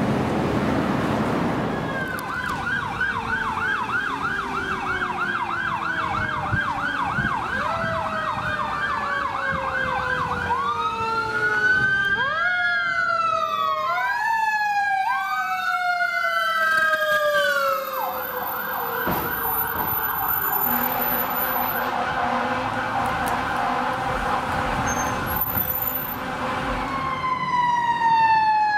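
Fire truck sirens on an emergency response. A fast warbling yelp turns about ten seconds in to slow rising-and-falling wails, then back to a fast warble. Under it, a second siren tone falls slowly in pitch.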